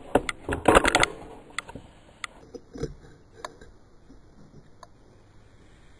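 Clatter and knocks of cookies being picked off a ceramic plate, busiest in the first second, then a few scattered light clicks.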